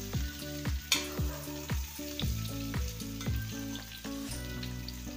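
Pieces of boiled jackfruit sizzling as they fry in hot oil in a kadhai, stirred with a spatula.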